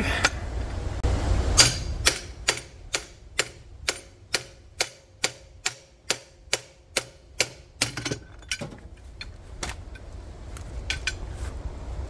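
Sharp knocks as a hand-held tire bead breaker is pounded in between a tractor tire's bead and its steel rim. One heavy knock is followed by an even run of strikes, about two a second, for some six seconds, then a few scattered ones.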